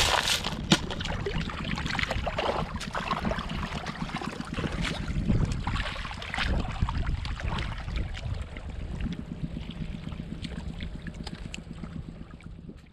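Clams clattering as they are tipped from a plastic basket into a plastic basin, then shallow seawater sloshing and lapping with scattered small splashes over a steady rumble of wind on the microphone. The sound fades out near the end.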